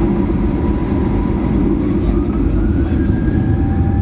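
Inside the cabin of a Boeing 737-800 at take-off: a loud, steady low rumble, with the whine of its CFM56-7B engines rising in pitch from about halfway in as they spool up to take-off thrust.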